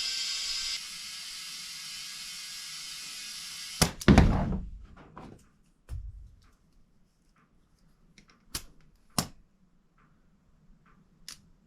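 Compressed air hissing steadily from an air chuck into a tractor's front tire, dropping slightly a little under a second in and cutting off about four seconds in. A loud thunk follows, then a few sharp clicks and taps.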